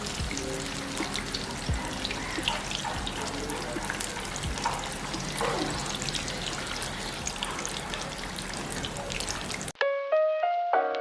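Flour-coated chicken deep-frying in hot oil: a steady crackling sizzle with scattered sharp pops, with faint music under it. About ten seconds in the frying cuts off suddenly and background music with clear picked notes takes over.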